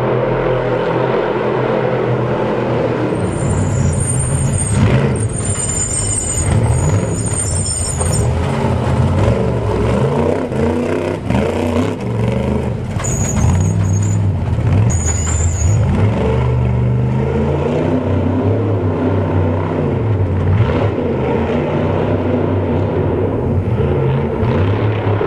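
Off-road Trophy Truck V8 race engines revving hard as the trucks pass, the pitch rising and falling with throttle and gear changes. Two spells of a shrill, high-pitched squeal cut in, one about three seconds in lasting several seconds and a shorter one around the middle.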